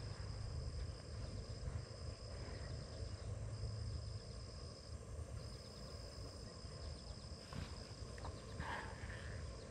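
Insects trilling: one steady high-pitched note held in long stretches of a second or more, broken by brief gaps, over a low rumble.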